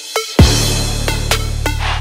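Electronic background music: short synth notes, then about half a second in a deep bass drop comes in with a swell of noise under the notes.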